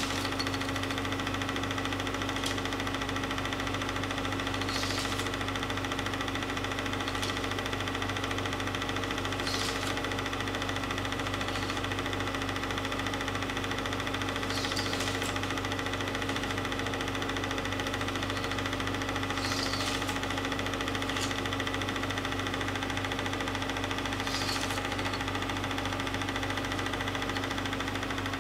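Film projector running: a steady mechanical hum and whir, with a faint high click about every five seconds.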